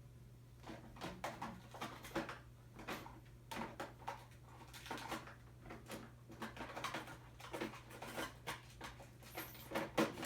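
Paper and craft supplies being handled and shuffled on a desk: a busy run of irregular rustles, light knocks and clicks, over a steady low hum.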